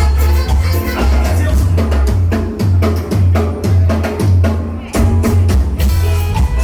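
Loud Latin dance music with a heavy bass line and steady percussion, briefly thinning out just before the last couple of seconds.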